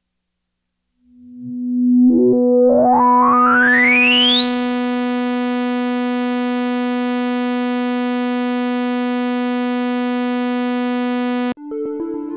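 Moog Sub37 Tribute Edition synthesizer holding a single sawtooth note with the filter resonance at maximum. After about a second of quiet the note fades in and the cutoff sweeps from closed to fully open over about three seconds, the resonant peak whistling upward through the harmonics. The bright, fully open note then holds and cuts off suddenly near the end.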